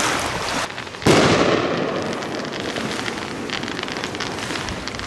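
Fireworks: a loud bang about a second in, followed by a long crackling tail of many small pops that slowly fades.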